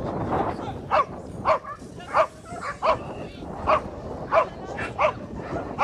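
A dog barking over and over, about eight barks at an even pace of roughly three every two seconds, starting about a second in.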